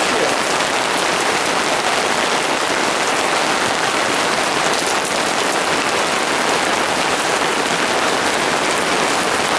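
Heavy summer-storm rain pouring down steadily, a dense even hiss of countless drops striking the ground, plants and fencing.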